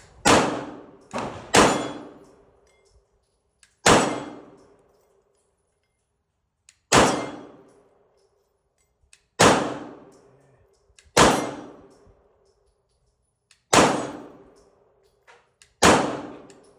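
Nine shots from a Canik TP9DA 9mm pistol: three in quick succession, then single shots every two to three seconds. Each shot is followed by a ringing metallic clang from a steel target being hit.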